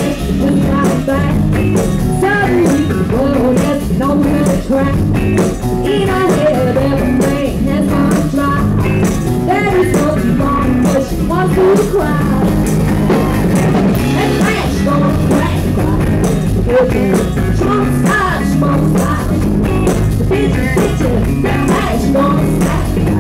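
Live rock and roll band playing, with a woman singing lead into the microphone over the band.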